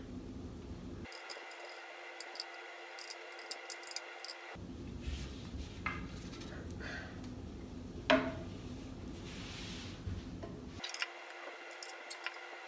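Hex key turning assembly screws into metal threads while furniture parts are handled: scattered small metallic clicks and scrapes, with one sharper knock about eight seconds in.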